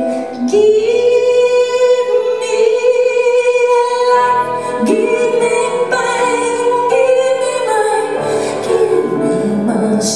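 Live concert performance of a song: a woman singing two long held notes over instrumental accompaniment, the second one sliding up into its pitch about halfway through.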